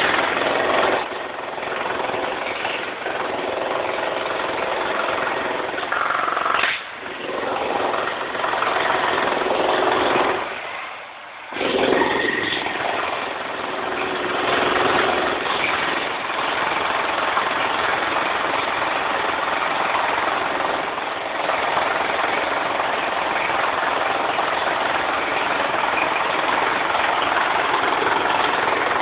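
DeWalt electric demolition hammer chipping concrete, running as a steady loud hammering. It lets up briefly about 7 seconds in and stops for about a second near 11 seconds before starting again.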